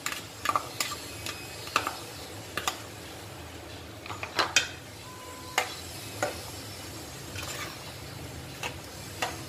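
Metal spoon stirring vegetables in a metal cooking pot, giving irregular clinks and taps against the pot over a low steady hum.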